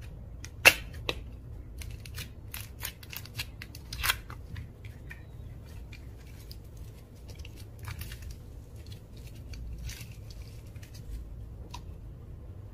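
Slime being handled and mixed, giving a run of sharp clicks and snaps. The loudest comes about a second in and another at around four seconds, with scattered smaller ones after.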